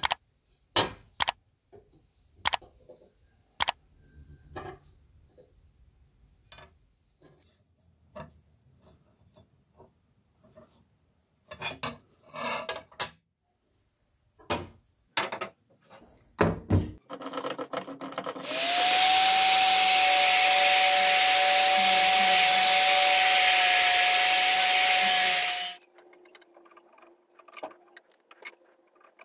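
Scattered clicks and knocks as the rusty steel blank of a hunting knife is handled and set on a workbench. Then an electric power tool spins up, runs steadily with a clear whine for about seven seconds, and stops suddenly.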